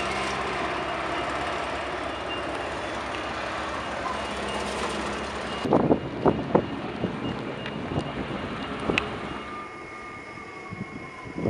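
Steady hum of a motor vehicle's engine running. About halfway through it gives way to quieter street sound with several sharp knocks, and a faint tone that slowly falls in pitch near the end.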